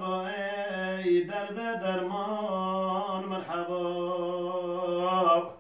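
A man singing a Turkish ilahi (Sufi hymn) unaccompanied, drawing out long held notes that waver and bend in pitch. The voice breaks off just before the end.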